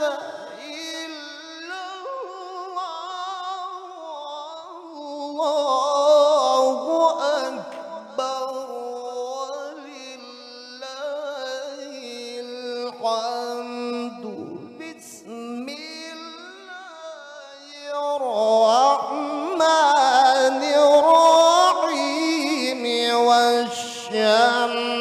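A male Quran reciter's voice in melodic tilawah, amplified through a handheld microphone: long held phrases with wavering, ornamented runs. It swells louder around six seconds in and again from about eighteen seconds on, climbing higher in the last stretch.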